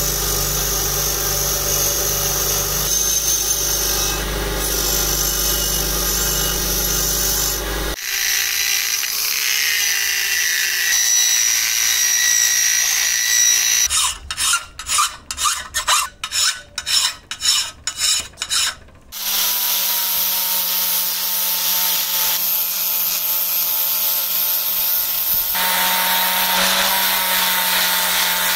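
A bench grinder's spinning wheel grinds a cast-iron part of an antique charcoal iron, followed by a few seconds of another steady power tool. Near the middle a flat file is drawn by hand across the iron's body in quick rasping strokes, about two a second. An angle grinder with an abrasive disc then runs against the iron to the end.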